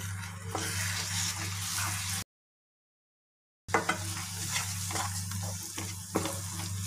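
Semolina kesari bubbling and sizzling in a nonstick pan as it is stirred with a wooden spatula, with a steady low hum underneath. The sound drops out completely for about a second and a half partway through; then the thickened, nearly done kesari is scraped and turned in short spatula strokes.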